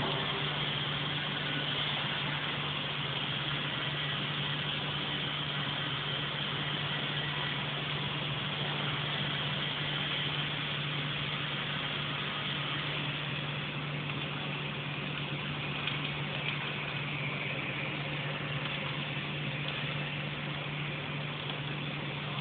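Welding machine running: a steady low hum under an even hiss, unbroken throughout.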